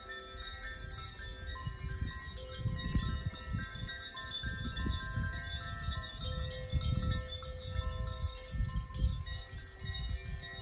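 Hand-held tuned wind chimes being swayed: many tinkling tones overlap and ring on. Gusts of wind rumble on the microphone several times.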